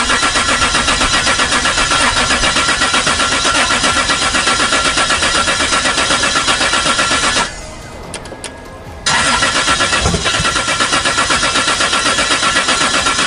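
The starter cranks the built 2JZ-swapped Lexus SC400's engine in a long, steady, pulsing turn-over without it catching. It stops about seven seconds in and cranks again a second and a half later.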